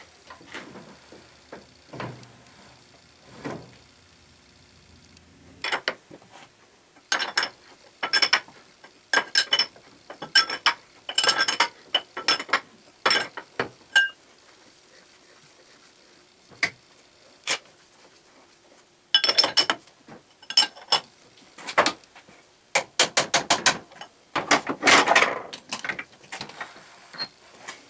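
Metal clinks and rattles of a lathe's threaded collar being turned by hand to mount a three-jaw chuck on a taper-key spindle. The clinks come irregularly, with a quick ratcheting run of ticks about 23 seconds in.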